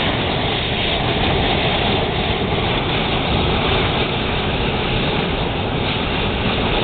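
Compressed air from an air compressor hose blasting into a fire in a homemade blast furnace: a loud, steady rushing noise.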